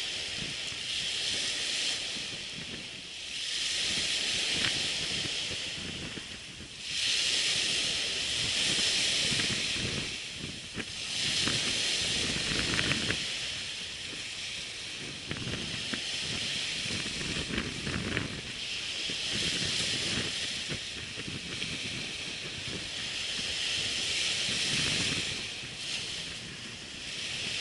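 Strong wind buffeting the microphone over surf washing on a sandy beach: a rushing hiss that swells and fades every few seconds over a low rumble.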